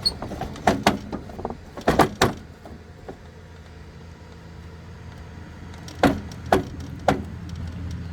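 Sharp knocks and clanks as the riding lawn mower is handled to test its freshly welded steering, a cluster early on and a few more around six to seven seconds in, with a low steady hum growing louder toward the end.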